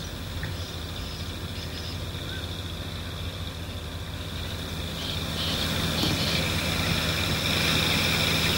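Steady mechanical drone with a high whine, getting louder from about five seconds in.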